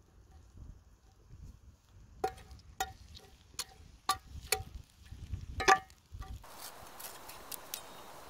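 A steel cleaver tapping against a cast-iron pan about seven times, each tap ringing briefly, the one near the end the loudest. Then a steaming pot of soup over a wood fire gives a steady hiss with a few crackles.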